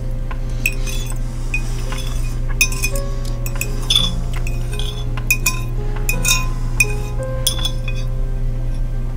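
Eating utensil clinking and scraping against a plate again and again while noodles are eaten quickly, over background music.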